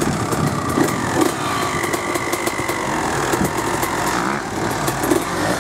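Motocross bike engine running and revving, its pitch wavering up and down.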